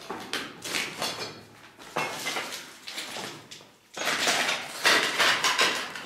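Footsteps crunching and scraping over rubble and crumbled plaster on a debris-strewn floor. They come in irregular bursts, loudest in the last two seconds.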